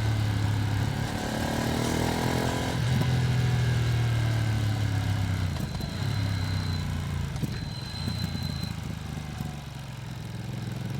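Ducati Streetfighter V2S's V-twin engine under way on a ride, the new engine still being run in. Its revs rise about a second in and hold steady, then ease off and the engine goes quieter near the end.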